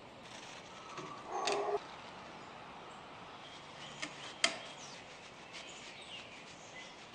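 Chisel work on a small walnut knife handle: a short scrape about a second in, then two sharp clicks around four seconds in, the second the loudest. Faint bird chirps in the background.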